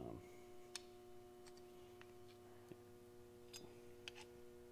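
Faint, scattered metal ticks of a screwdriver shaft against the shield and gear of a diesel injection pump's hydraulic head, about five in all, over a steady low electrical hum.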